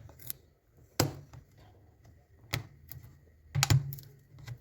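Victorinox RangerGrip 57 Hunter's lever-type can-opener blade cutting around a tin can lid, each levering stroke giving a sharp metal click, about five in all at uneven spacing.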